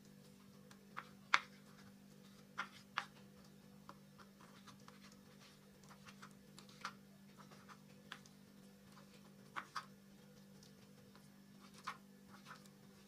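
Kitchen knife cutting through raw chicken breast and tapping a wooden cutting board: sharp, irregular taps, often a second or more apart, sometimes in quick pairs. A faint steady low hum runs underneath.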